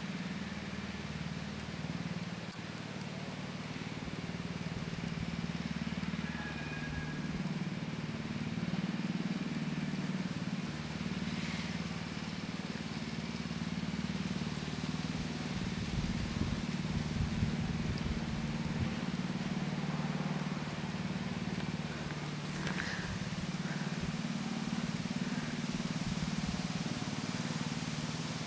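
A steady low drone of a running motor, with irregular low rumbles around the middle.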